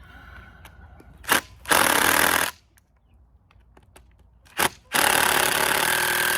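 Aerosol spray can hissing twice, each time a short puff followed by a steady spray of about a second and a half.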